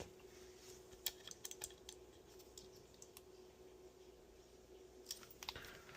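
Near silence with faint light clicks from handling tools on a circuit board, in two short clusters about a second in and near the end, over a faint steady hum.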